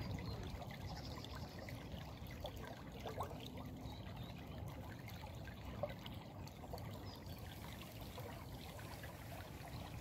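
Small shallow stream trickling and babbling over stones, steady throughout, with a low rumble underneath.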